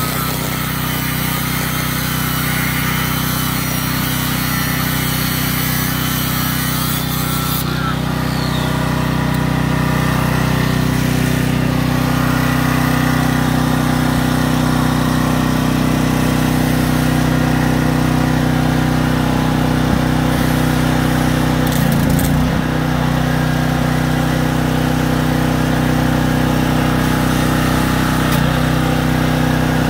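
Corded angle grinder cutting through the steel stem of a shopping-cart caster, stopping about seven to eight seconds in, over the steady drone of an engine-driven welder-generator running.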